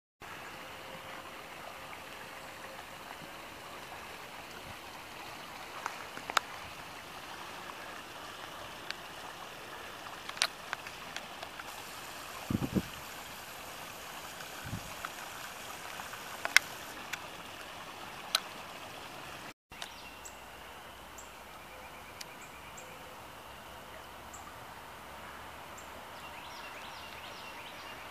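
Rain-swollen woodland creek running steadily, with a few sharp snaps and crackles scattered through it and one dull low thump near the middle.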